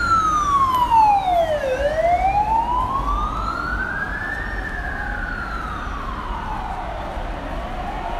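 Emergency vehicle siren in a slow wail, its pitch falling for about two seconds, rising for about three, then falling again and starting to rise near the end.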